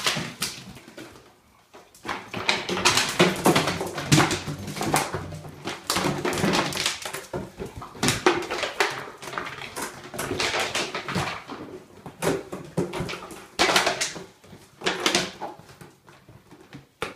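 Dogs chewing and shaking empty plastic water bottles: the thin plastic crinkles and crunches in repeated bursts, with short pauses between.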